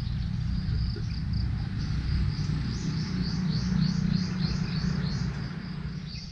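A low, uneven rumble of wind and movement on a GoPro Hero 6 action camera's microphone during a run. From about the middle on, a high chirping call repeats about three times a second.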